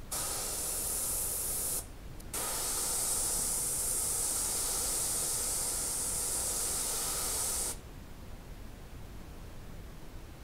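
Gravity-feed airbrush spraying paint, a steady hiss of air and paint at the nozzle. A short spray is followed by a brief pause about two seconds in, then a longer spray that stops suddenly near the end.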